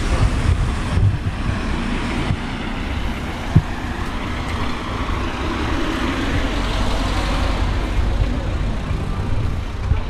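A car drives past in the street, its engine and tyre noise swelling to a peak about two-thirds of the way through and then easing off. A single sharp knock comes about a third of the way in.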